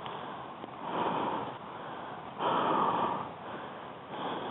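A person's heavy breathing close to the microphone: three loud, rough breaths about a second and a half apart, the middle one the loudest.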